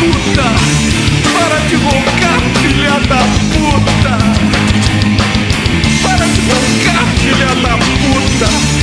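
Loud punk rock music, an instrumental stretch without singing.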